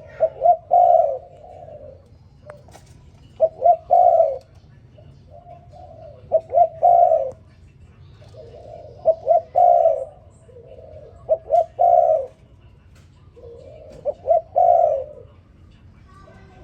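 Spotted dove cooing its song: about six phrases, each two or three short coos run into a longer one, repeated every two and a half seconds or so.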